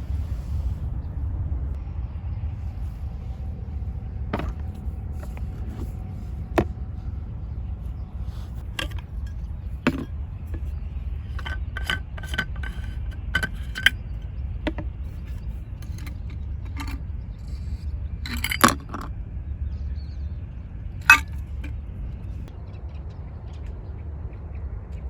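Scattered light clinks and knocks over a steady low rumble, with the two loudest knocks about eighteen and twenty-one seconds in.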